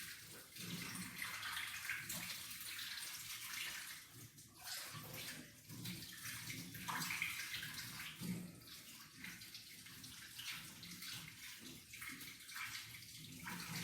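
Kitchen tap running, the stream splashing unevenly as ginger is rinsed under it.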